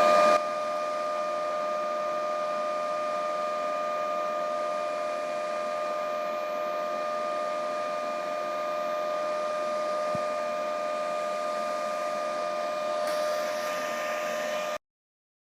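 A steady machine hum with a constant mid-pitched whine over faint hiss, cutting off abruptly near the end.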